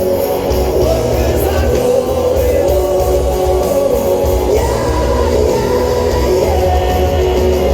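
Live rock band playing loudly, with distorted guitars, a driving drum beat and singing, recorded from the crowd.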